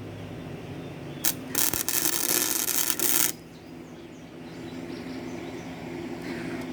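Gasless flux-core arc welding: a short burst of arc about a second in, then a longer sizzling run of just under two seconds that stops abruptly. A steady low hum sounds underneath throughout.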